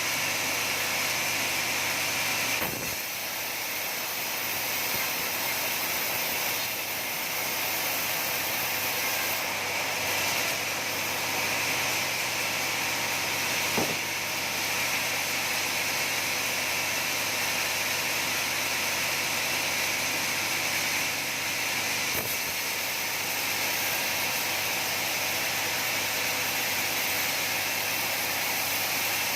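Sawmill saw running steadily, a continuous noisy whir with small changes in load now and then.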